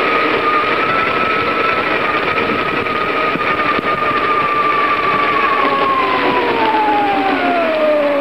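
Riding noise from a bicycle on pavement: steady wind and road rush with a whine that holds its pitch, then drops smoothly in pitch over the last two seconds.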